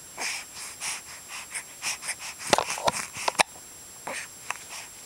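Baby with hiccups making short, breathy, wheezy sounds, several a second. A cluster of sharp clicks comes about halfway through.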